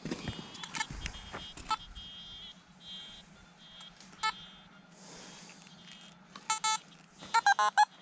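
Metal detector beeping over a buried target: a few separate short beeps, then a quick run of beeps that waver in pitch near the end. The target turns out to be an aluminium one-peso coin.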